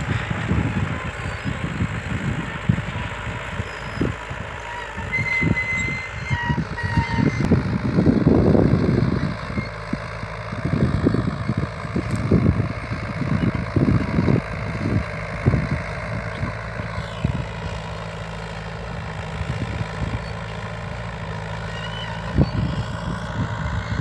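Small crawler tractor's engine running steadily while it pulls a disc harrow across tilled soil, with irregular low gusts of wind rumbling on the microphone.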